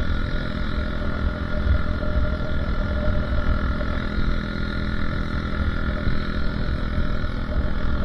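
Motorcycle engine running steadily while riding along, under a fluctuating wind rumble on the microphone.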